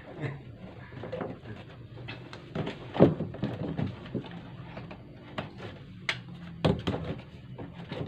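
Irregular knocks, clicks and rattles of a washing machine's casing panels being handled. The loudest knock comes about three seconds in, and there are two more sharp ones a little after six seconds.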